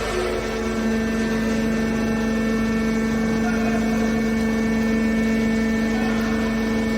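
Hydraulic power unit of a triple-action metal scrap baler running, a steady machine hum with a firm low tone that strengthens slightly about a second in.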